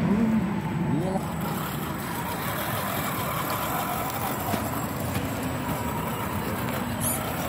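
A scale RC crawler truck's electric motor and gearbox whining as it creeps over dirt, with faint voices in the first second.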